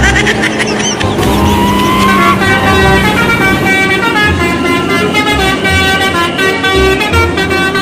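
Bus telolet horns, a set of musical air horns, playing a tune of several stepped tones, with a rising glide in the first couple of seconds, over low beats.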